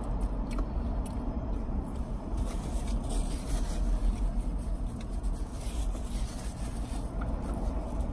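Steady low rumble of a car heard from inside its cabin, with faint clicks of chewing over it.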